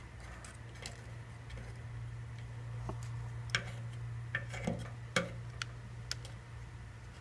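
Scattered light ticks and taps of a soldering gun's tip working solder over a tin patch on a steel motorcycle fuel tank, a few sharper clicks a little past the middle, over a steady low hum.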